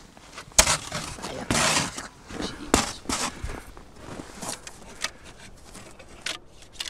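Footsteps in snow: an irregular series of short crunches.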